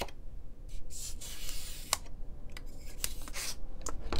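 Knife blade cutting and scraping through a foam block in short scratchy strokes, with a few small sharp clicks in between.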